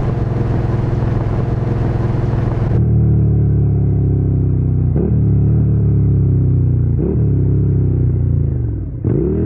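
Motorcycle engine running at speed with wind hiss. Then it pulls steadily, with two brief breaks in pitch like gear changes about five and seven seconds in. Near the end it falls away and picks up again.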